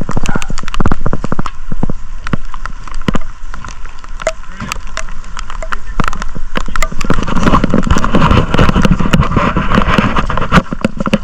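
Rain falling close to the microphone as many quick irregular taps, with voices in the background growing louder about seven seconds in.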